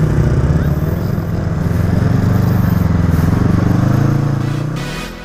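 Motorcycle engine running under throttle, its pitch rising about three to four seconds in as it revs, then fading out near the end.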